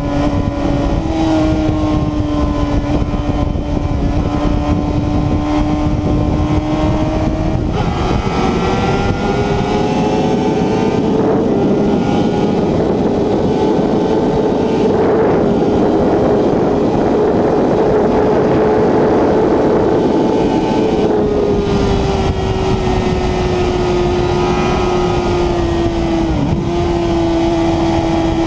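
Honda CBR1000RR Fireblade's inline-four engine running hard from the rider's seat at highway speed. The note steps up in pitch about eight seconds in as the bike pulls to around 265 km/h under heavy wind rush, then sinks gradually over the last several seconds as it slows.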